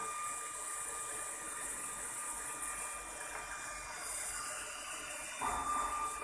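Steady workbench room hiss with a faint, constant high-pitched whine running through it. About five seconds in there is a soft bump of handling noise as the camera moves.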